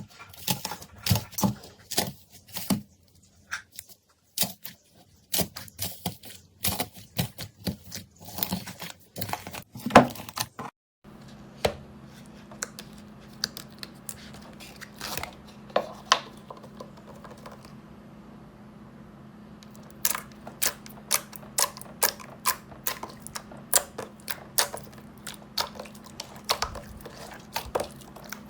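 Slime being squished and poked by hand, making rapid, irregular sharp crackles and pops. About eleven seconds in, the sound changes abruptly and a steady low hum runs under the crackling from then on.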